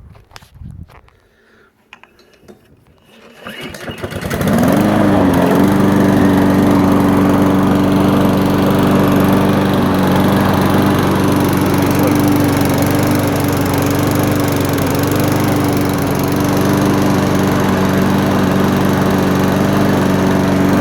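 A lawnmower's Honda 135cc four-stroke engine makes its first start after more than a year in storage. After a few seconds of faint clicks and rustling, the engine catches about four seconds in, sweeps briefly up in pitch, and settles into steady running at an even speed.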